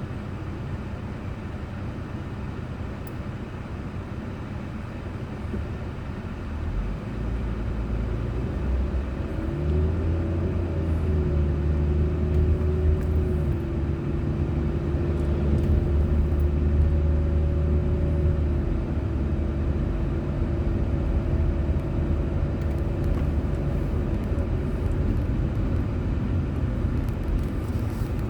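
Car driving on a road, heard from a dashboard camera: a steady wash of road and engine noise. About ten seconds in, a deeper steady engine hum joins and grows louder, then fades again in the second half.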